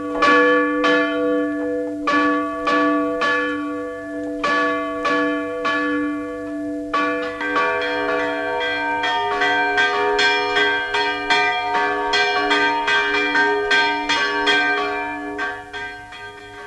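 Church bell struck rapidly and repeatedly by a hand-swung clapper, ringing the alarm, about two strokes a second. About halfway through, a second, higher bell joins and the strokes come faster and overlap. The ringing fades near the end.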